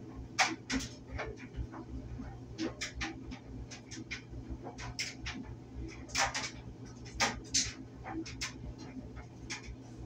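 Clothes dryer running: a steady low motor hum with irregular knocks and clicks from the load tumbling in the drum.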